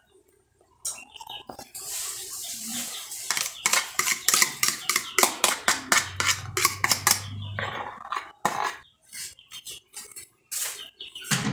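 A fork clinking against a bowl as eggs are beaten: a quick, even run of sharp clinks for about four seconds, starting a few seconds in, then a few looser taps.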